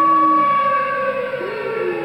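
Tornado siren played back from a video through a speaker, holding a steady pitch and then starting to fall near the end. Under it, a dog howls along with a lower, wavering pitch: one howl ends about half a second in and another starts near the end.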